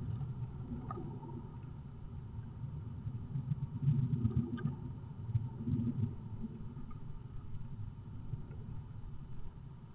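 Great tit rummaging in the moss of its half-built nest inside a wooden nest box: a dull, uneven scuffling and rustling with a few faint clicks, loudest around four and six seconds in.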